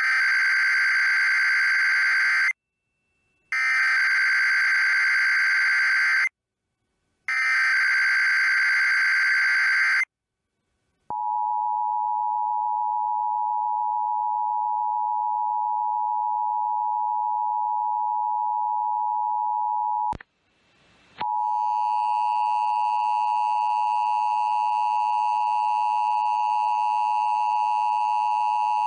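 Emergency Alert System broadcast tones: three bursts of SAME header data, each a few seconds long, then a steady EAS attention tone for about nine seconds. After a click and a brief gap, a second, harsher attention tone with many overtones begins.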